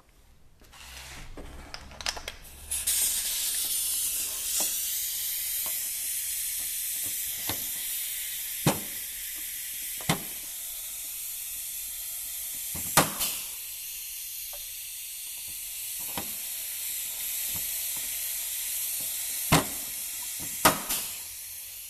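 Compressed-air blow gun hissing steadily as it blows metal drill chips out of a drilled rivet hole in a snowmobile running-board bracket. The hiss builds over the first few seconds, then holds, and a few sharp clicks sound through it.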